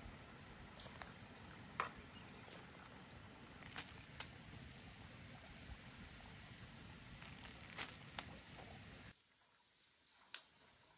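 Faint outdoor background hiss with insects chirping and a few sharp clicks scattered through it; the background drops off suddenly near the end.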